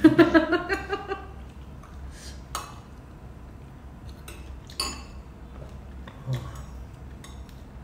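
Metal spoons clinking against ceramic soup bowls during eating: a few scattered, separate clinks, the clearest about two and a half seconds and five seconds in. A short vocal sound opens the first second.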